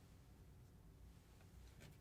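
Near silence: a faint steady low hum of room tone, with two faint light clicks in the second half.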